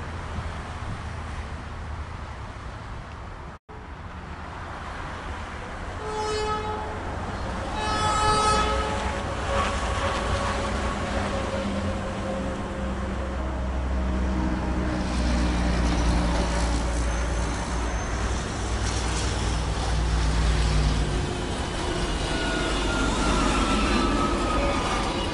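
NJ Transit River Line Stadler GTW diesel light-rail car sounding two short horn blasts, then approaching and passing close by: its diesel engine rumble and wheels on the rails grow louder as it arrives.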